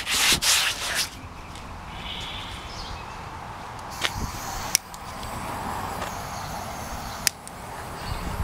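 Brisk rubbing strokes on the kayak's polyethylene deck for about the first second. Then a handheld mini torch hisses steadily as it re-melts the plastic patch to bubble out air pockets, with a few sharp clicks in between.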